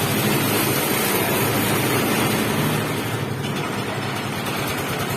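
Concrete mixer running steadily, a dense mechanical noise with a low engine hum, easing slightly about three seconds in.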